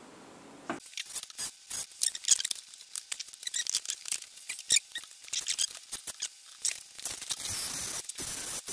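Quick, irregular scratchy clicks and rubbing, then about seven seconds in a cordless drill starts running steadily.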